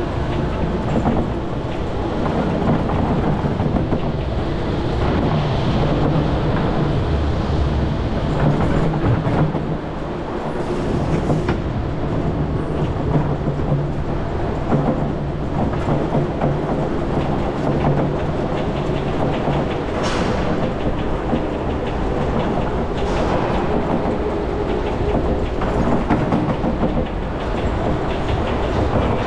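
Go-kart driving around an indoor track, heard from on board: a steady rumble and rattle from the kart with its motor running.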